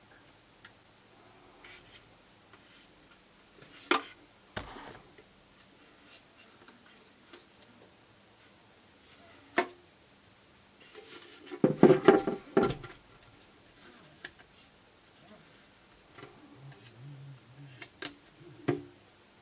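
Hands handling a plastic PTZ video-conference camera, its lens head turned and tilted by hand: scattered clicks and knocks against the housing, and a longer stretch of rubbing and knocking past the middle, the loudest part.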